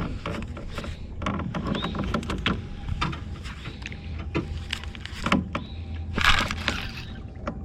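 Scattered clicks and knocks of fishing gear being handled in a small boat, over a steady low hum, with a louder rushing noise lasting about half a second roughly six seconds in.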